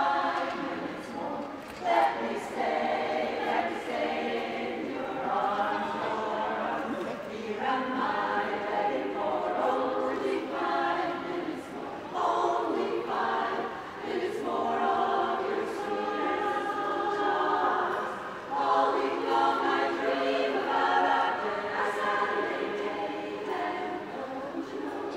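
A large women's choir singing together in parts, the song going on in phrases with short breaths between them.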